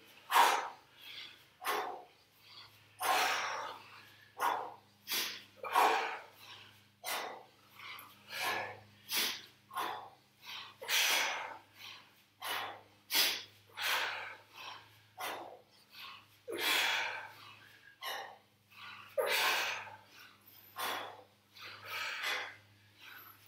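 Short, sharp exhalations, repeated about once a second, as people breathe hard through a set of kettlebell swings and bridges, over a faint steady hum.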